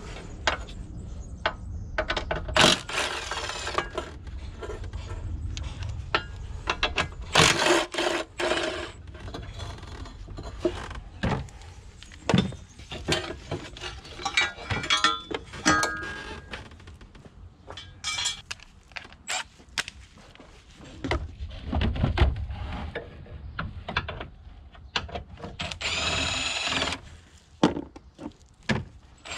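Plastic clicks, knocks and clatter from the air filter housing, intake ducts and clips of a Peugeot 1.6 HDi engine bay being handled and pulled free by gloved hands, with a pitched squeak lasting about a second near the end.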